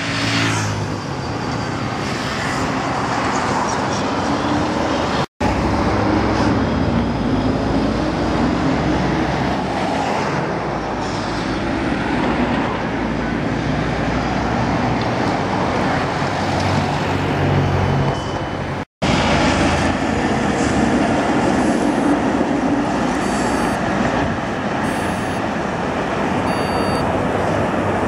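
Trams and car traffic passing on a busy city street: steady road noise of tyres and engines, with the low running sound of the passing trams. It drops out suddenly twice for a split second.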